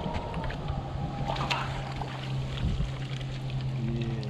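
Water splashing and the landing net working in the shallows as a small hooked fish is netted, with a few sharp splashes, over a steady low engine hum.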